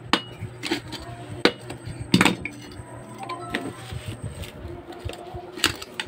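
Hammer tapping on the side of a washing machine motor's bushing to knock the worn bushing loose: a series of sharp, irregular metallic strikes, the loudest about two seconds in.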